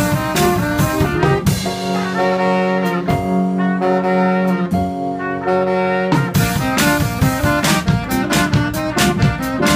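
Live small-group jazz, with trumpet and saxophone playing together over a drum kit. Long held notes give way to a quicker run of notes about six seconds in, with cymbal and drum strokes throughout.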